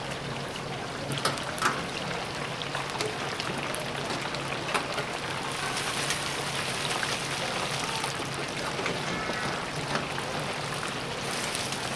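Chicken pieces deep-frying in hot oil: a steady sizzle with scattered crackles and pops.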